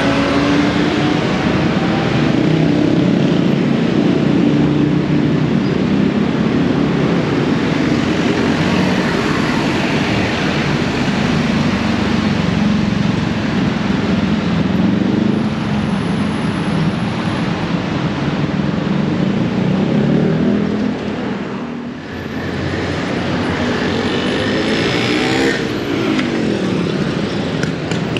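Heavy traffic on a busy city road: motor vehicles passing close by, their engines running and revving with wavering pitch. There is a brief lull about three-quarters of the way through, then one engine note rises and falls as a vehicle goes by.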